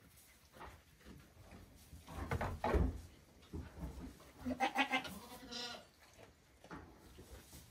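Goat kids bleating in short, quavering calls a little past halfway, with the thumps and scuffles of their hooves on hay and against the wooden pen walls, the loudest thump about three seconds in.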